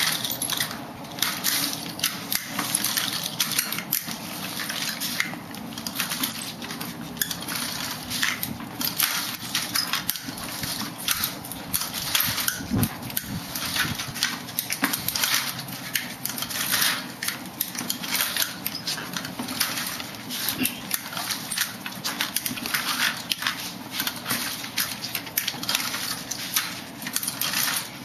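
Aluminium walker with front wheels and tennis-ball glides, and metal-upright leg braces, clattering and scuffing on concrete with each step: a steady run of irregular clicks and scrapes.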